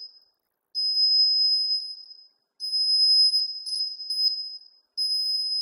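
Electronic buzzer of a homemade laser-and-LDR security alarm sounding a steady high-pitched tone, three times for one to two seconds each, as a hand breaks the laser beam and the LDR goes dark.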